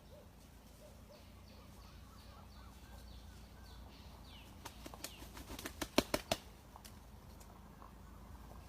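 Junglefowl beating its wings: a quick run of sharp flapping claps lasting under two seconds, about halfway through, with faint high chirps in the background.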